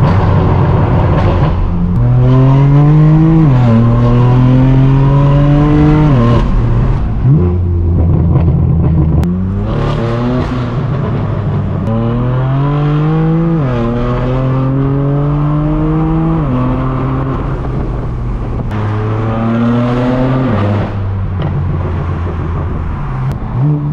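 BMW M4 F82's twin-turbo straight-six through a straight-piped AWE Track exhaust, accelerating hard through the gears. The engine note climbs and drops at each upshift, about six shifts in two main runs, with steadier cruising stretches between and one more short pull near the end.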